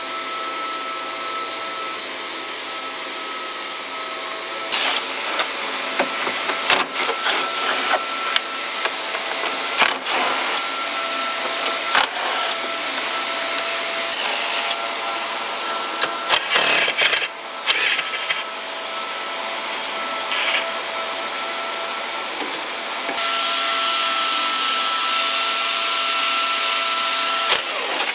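A steady whirring machine noise with a high hum, its hiss rising about five seconds before the end. Scattered clicks and knocks come from plastic dashboard trim being handled and worked loose.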